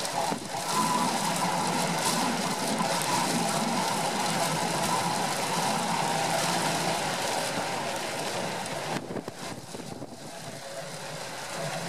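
Storm wind and heavy surf breaking on a jetty: a steady rushing roar that dips for a moment near the end.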